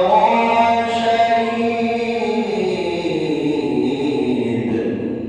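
A male Quran reciter's voice holding a long, drawn-out melodic note. The pitch slides down over the last couple of seconds, and the note fades out at the end.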